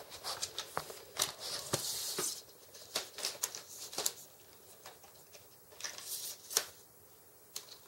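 Scattered clicks and rattles of a Cullmann Alpha 2500 tripod's legs and leg latches being handled and reset, with a short scraping rustle about two seconds in and the sharpest click a little over six seconds in.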